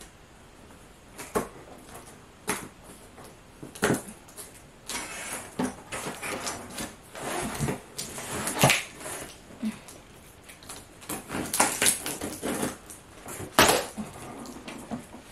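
Taped cardboard shipping box being worked open by hand: scraping and rustling at the seams, broken by sharp knocks and clicks. The cardboard flaps are pulled open near the end.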